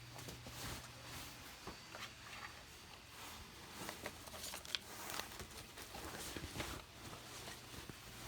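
Faint rustling with scattered light clicks and taps, a little busier in the middle.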